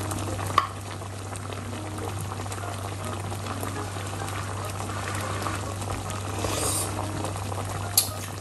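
Thick tomato-based pork asado sauce bubbling at a simmer in a pot on a gas burner, a steady bubbling over a constant low hum. A short sharp click comes about half a second in and another near the end.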